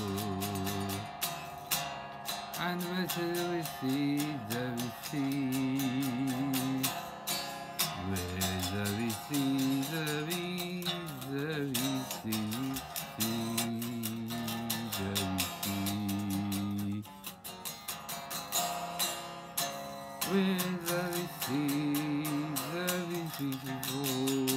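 Electric guitar playing a picked melody, with wavering vibrato on held notes, over sustained low accompanying notes that change every second or two.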